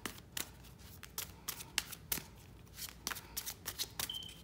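Tarot deck being shuffled by hand: an irregular run of quick card flicks and snaps.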